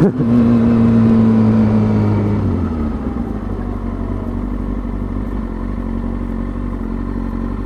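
2003 Kawasaki ZX-6R 636's inline-four engine running at steady revs, then the revs falling and the engine note dropping away about two and a half seconds in. A steady low wind rumble on the microphone runs underneath.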